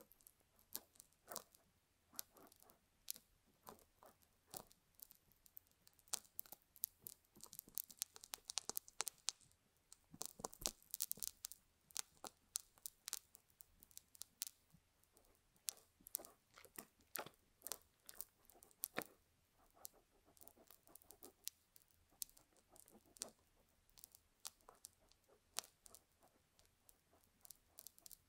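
Metal tweezers digging into and pulling at a sticky paste inside a silicone ear model's canal, heard very close up. An irregular stream of sticky crackles and small clicks, busiest around ten to twelve seconds in.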